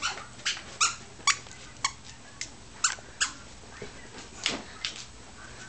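Squeaky plush dog toy squeaked again and again as a German Shepherd chews it in its mouth: about ten short, sharp squeaks at an uneven pace, stopping a second or so before the end.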